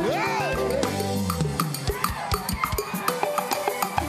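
Live gospel praise band music: a drum kit keeps a steady beat over bass notes, with a brief sung or shouted rising-and-falling note in the first second.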